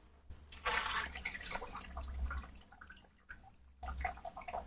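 Water splashing and dripping, stirred by a baby monkey playing in it: one longer spell of splashing, then a few short splashes near the end.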